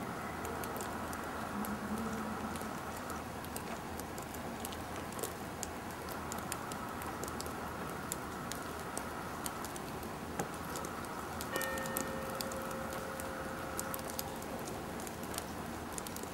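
Outdoor background hiss with many scattered faint ticks and clicks. A faint steady tone is heard for a couple of seconds about two-thirds of the way through.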